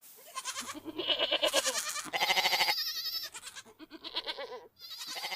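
Goats bleating, several quavering calls one after another with short gaps between them.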